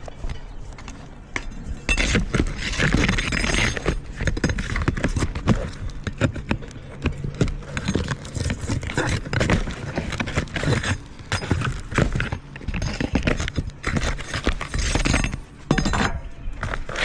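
Irregular knocking, scraping and clattering of roof repair work, with hand tools striking and old roofing material and wood being pried and broken.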